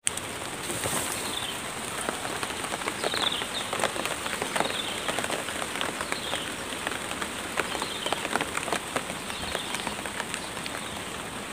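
Light drizzle pattering on leaves and undergrowth: a steady hiss with many scattered sharp drop ticks.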